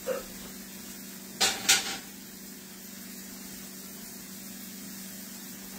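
A brief clatter of kitchen utensils, two or three sharp knocks about a second and a half in, over a steady faint hiss and low hum.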